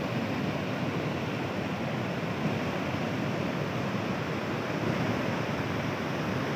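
Muddy floodwater rushing and churning in a steady, unbroken wash of noise as the swollen Golok River overtops and pours past a flood embankment.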